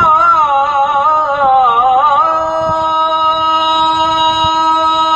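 A man's voice chanting the adhan, the Islamic call to prayer. For about two seconds it moves through a wavering, ornamented run, then settles on one long held note.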